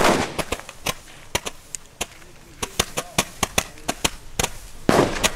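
Ground firework firing an irregular string of sharp, loud bangs and cracks, with a heavy bang right at the start and another dense burst of bangs near the end.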